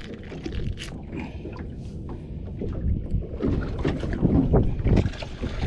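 Wind buffeting the microphone over water moving around a small boat, with irregular knocks from handling a fish on the gunwale. It grows louder in the second half.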